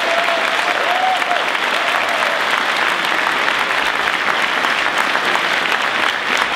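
A large convention audience applauding steadily after an applause line, with one long held note riding over the clapping in the first two seconds or so.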